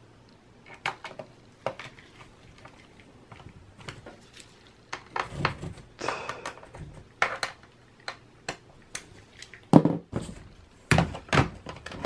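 Scattered plastic clicks and knocks as a Dell Latitude E6540 laptop's base is worked on with a small screwdriver and handled, with a louder thump about ten seconds in.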